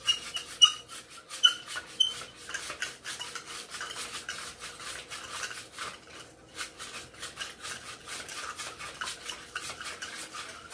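Spoon stirring fast in a bowl of water, scraping the bottom in quick even strokes, about five a second, to dissolve slime-activator powder that still leaves grains, with a few light clinks of the spoon on the bowl in the first two seconds.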